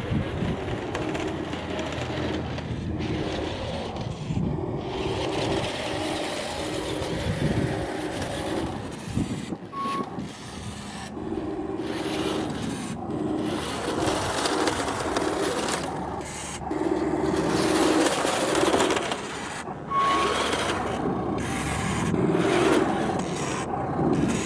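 Radio-controlled model Volvo A40G articulated dump truck driving over gravel: its electric drive motor and gears whine in short on-off bursts over a gritty crunch from the gravel. A short high beep sounds twice.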